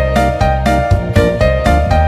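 Background music: an upbeat electric piano or keyboard tune with a steady bass line, notes changing about every quarter second.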